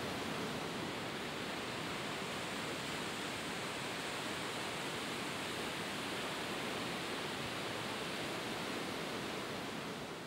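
Steady, even rush of ocean surf on a beach, with no distinct breaking waves, fading out near the end.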